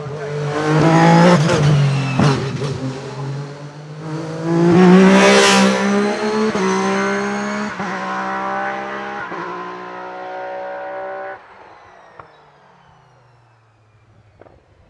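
Single-seater hillclimb race car accelerating hard up the hill, its engine pitch climbing and then stepping down at each upshift. It is loudest as it passes about five seconds in, and the sound drops away sharply about three seconds before the end.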